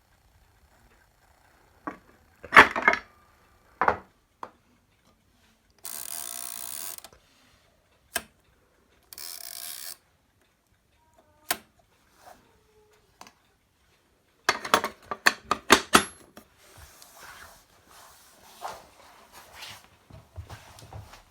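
Typewriter being operated: scattered mechanical clacks and knocks, two rasping sounds of about a second each, then a quick run of about a dozen key strikes, followed by faint clatter.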